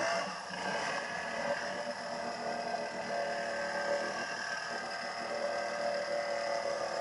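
ATV engine held at high, steady revs as the quad ploughs through deep water, with water churning and splashing around the machine. The revs climb sharply right at the start, then stay level.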